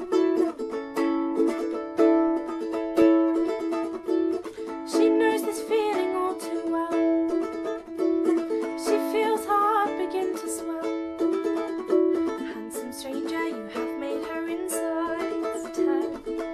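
Background music: a plucked string instrument strumming chords in a steady rhythm.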